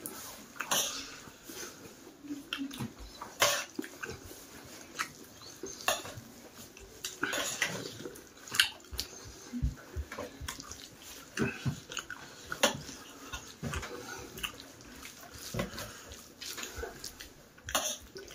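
Close-up eating sounds: a man chewing and smacking his lips, with his fingers mixing rice and curry on a metal plate, in irregular short wet clicks and scrapes.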